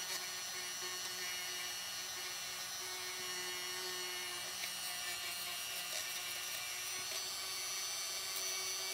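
Handheld rotary tool (Dremel-type) running at steady speed with a wire brush, scrubbing the dirty contactor on the underside of a Lionel 3927 track cleaning car. It makes one high, even whine without a break.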